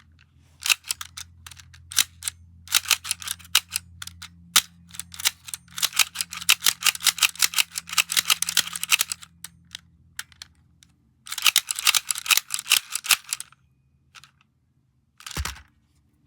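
Fidget clicking: irregular runs of rapid, sharp clicks, the densest near the middle and again about eleven to thirteen seconds in, over a faint steady hum. A single dull thump comes near the end.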